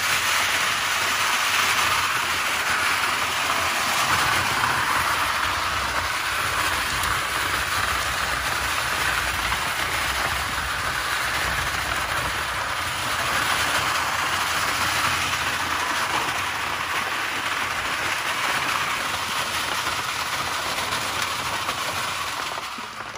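Homemade trommel soil sifter running: rocks and clods of soil tumbling and rattling inside the turning drum of bicycle rims and wire hardware cloth, a steady, dense rattle that drops away near the end.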